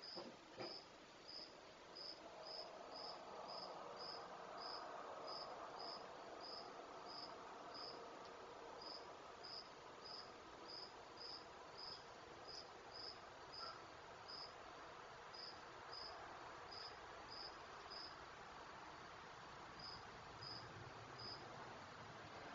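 Crickets chirping faintly, a short chirp about twice a second, over soft steady background noise.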